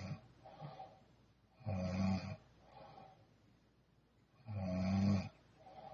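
A sleeping woman snoring rhythmically: loud buzzing snores on the in-breath, about a second and a half and four and a half seconds in, each followed by a softer out-breath, with the tail of another snore at the start.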